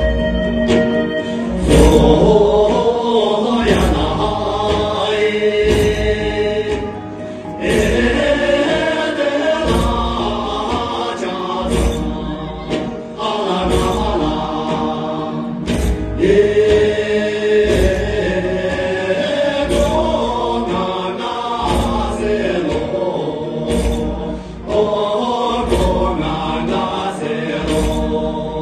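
Tibetan dance music: a chant-like group song over a beat that lands about every two seconds.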